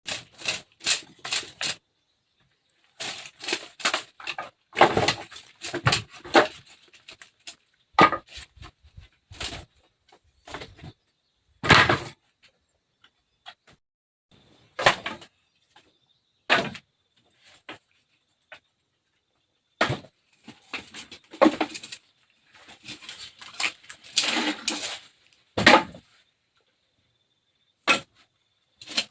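Irregular knocks, clatters and short scraping sounds, spaced unevenly with brief pauses between them, as of household objects being handled and moved.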